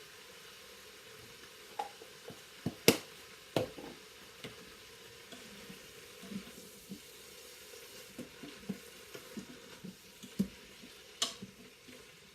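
Scattered clacks and knocks of a utensil and containers against cookware as ingredients are handled and stirred in the pressure cooker's pot, with the loudest sharp clack about three seconds in. A faint steady sizzle runs underneath as the browned food settles in the hot pot.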